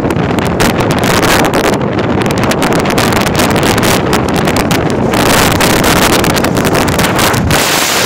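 Strong gusting wind buffeting the microphone, loud and continuous, with rough surf breaking on a rocky shore beneath it.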